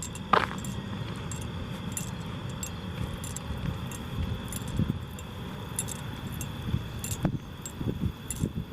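Footsteps walking along an overgrown path, with a light metallic jingle or clink at each step.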